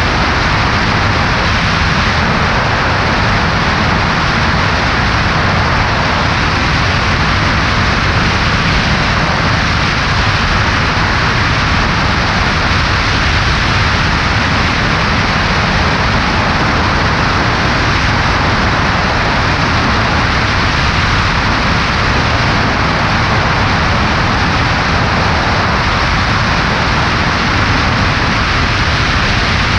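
Steady rush of airflow over a wing-mounted camera, mixed with the low drone of the Cessna 140A's engine and propeller in flight.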